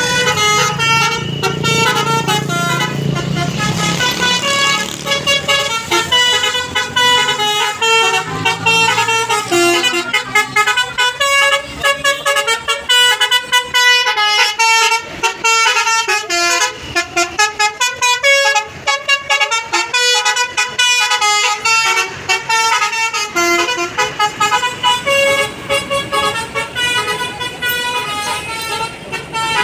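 Bus 'telolet Basuri' multi-tone musical air horn playing fast melodic runs of short, stuttering notes. A bus engine rumbles underneath for the first few seconds.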